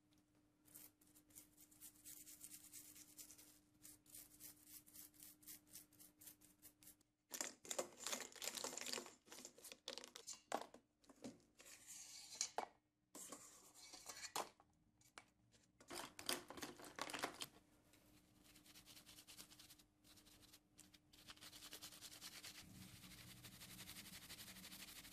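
Faint, rapid scratching strokes of a stiff brush scrubbing small drawer fittings clean, in runs of quick strokes with short pauses, turning to a steadier scrubbing hiss near the end.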